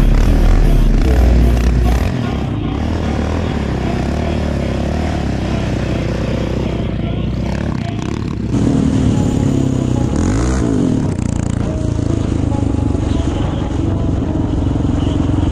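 Off-road engines running and revving: a Yamaha Raptor 700 quad's single-cylinder four-stroke as it drifts, then bikes riding along a road, with the revs rising and falling once about ten seconds in.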